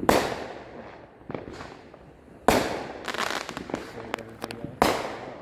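Fireworks going off: three loud bangs roughly two seconds apart, each dying away in a long echo, with smaller pops and crackles between them.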